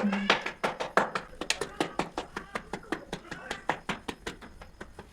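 Rapid, even tapping or knocking, about six to eight strokes a second, with a few short voice sounds over it.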